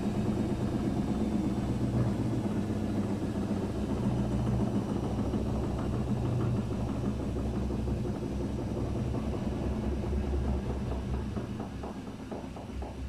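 Daewoo DWD-FT1013 washing machine spinning at 800 rpm with an unbalanced load: a steady low hum and rumble from the drum, dropping in level near the end as the spin slows.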